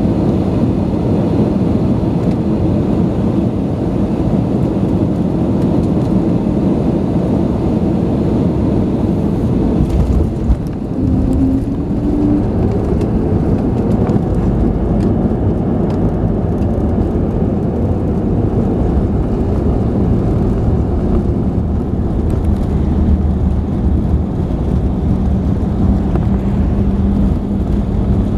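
Loud, steady rumble of an Airbus A320neo cabin during landing, heard from a window seat over the wing: engine and airflow noise on short final, a brief thump about ten seconds in as the plane touches down, then the rumble of the rollout. A steady engine hum rises out of the noise near the end.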